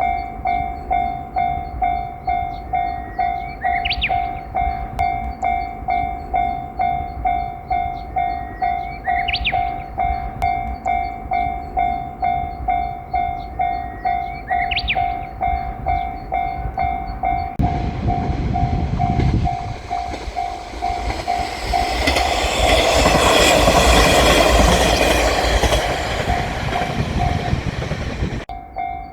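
Japanese level-crossing warning bell ringing in steady, evenly repeated strokes, with three short rising chirps about five seconds apart. A little past halfway, a diesel railcar arrives and passes over the crossing with low engine rumble and wheel clatter, loudest in the last third. The bell stops just before the end.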